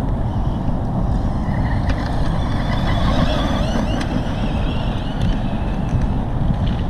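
Wind buffeting the microphone with a heavy, steady rumble. Over it, about two seconds in, the whine of an RC truggy's electric motor on 6S rises and falls for a couple of seconds as it is driven.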